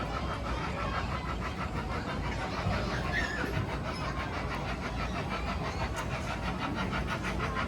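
Amusement-park mini train running on its narrow-gauge track: a steady low rumble with a rapid, even clatter.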